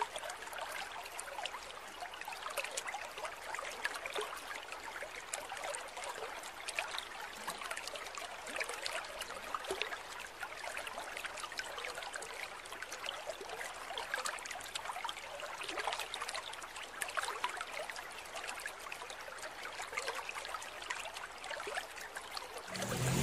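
Yamano M-I2L ultrasonic mist maker running under water in an aquarium: a steady fizzing, spattering trickle of many tiny droplets as the disc churns the surface into fog.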